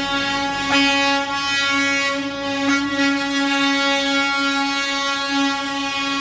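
Tractor-trailer air horn held in one long, steady blast at a single pitch, over the rumble of the truck convoy.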